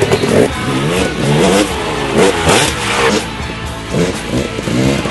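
2005 KTM 300 EXC two-stroke engine with an FMF exhaust revving hard, its pitch rising and falling again and again as the throttle is worked.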